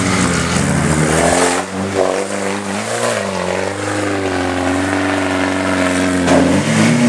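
Off-road 4x4's engine revving up and down under load as it climbs a steep dirt track, its pitch rising and falling repeatedly.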